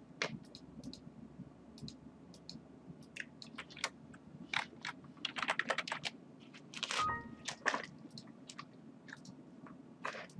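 Irregular clicking and tapping of a computer mouse and keyboard, with a short faint tone about seven seconds in.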